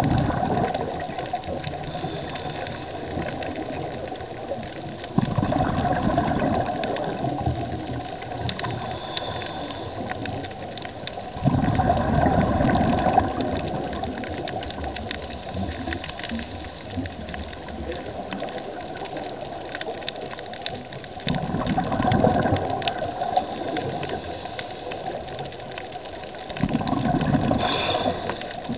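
Scuba diver's exhaled bubbles rushing from the regulator, heard underwater, in four long bursts with quieter stretches of breathing in between. Faint crackling clicks run under it.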